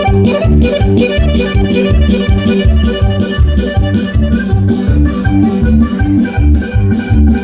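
Loud cumbia dance music played over a sound system, with a steady pulsing bass beat.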